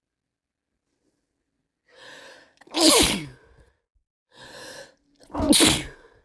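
A person with a cold sneezing twice, about two and a half seconds apart. Each sneeze starts with a short, breathy intake and ends in a loud burst.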